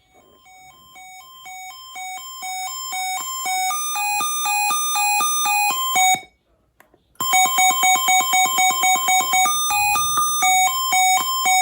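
Sangean CL-100 weather radio's alert siren under test: an electronic two-tone beeping that alternates between a lower and a higher pitch. It grows steadily louder over the first few seconds, breaks off for about a second near the middle, then resumes at full loudness.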